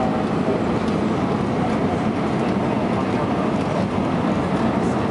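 Steady roar of engines and rushing air inside the passenger cabin of an Airbus A320 airliner in flight on approach.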